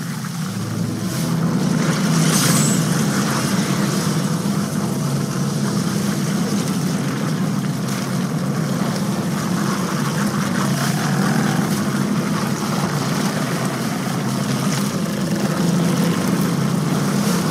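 A steady low drone with an even hiss over it, unchanging throughout, in the manner of an eerie horror-film soundtrack bed.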